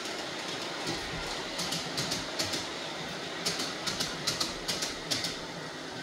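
Model train running along its track: a steady running noise, with a run of sharp, irregular clicks from about one and a half to five seconds in as the cars' wheels roll past.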